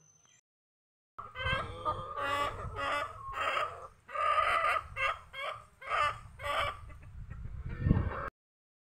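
Chicken clucking in a rapid run of short calls. It starts about a second in and cuts off suddenly near the end, with a low rumble underneath.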